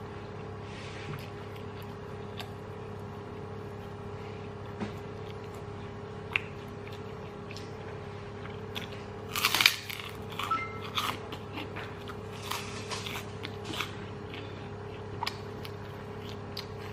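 Close-up crunching and chewing of crisp food: a burst of loud crunches about nine seconds in, then scattered smaller crunches, over a steady low background hum.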